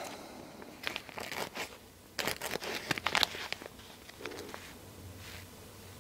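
Crinkly rustling and crackling of a plastic packet being handled as a pinch of fly-tying dubbing is pulled from it. The rustles come in two short clusters, about a second in and again from about two to three and a half seconds in.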